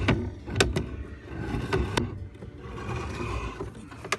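Sewer camera push cable being worked in the cast iron drain line, scraping and knocking against the pipe. There are several sharp knocks, a few in the first second and others about two seconds in and near the end, over a low rumble.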